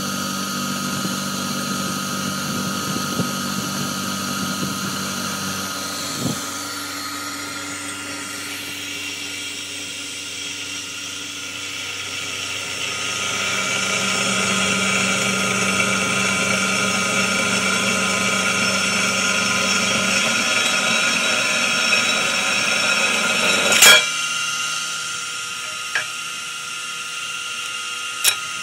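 Sherline benchtop CNC milling machine running, its motors giving a steady whine. About halfway through the noise grows louder and rougher, then drops with a sharp click near the end.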